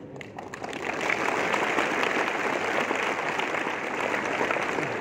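Audience applauding: a dense patter of many hands clapping that swells about a second in and then holds steady.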